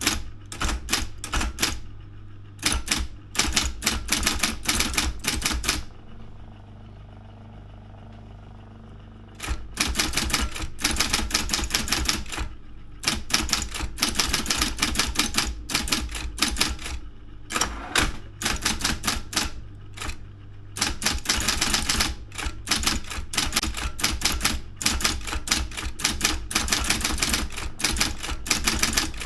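Daro 202 electric typewriter being typed on in fast runs of sharp keystrokes over the steady hum of its running motor. The typing stops for about three seconds early on, leaving only the motor hum, then carries on.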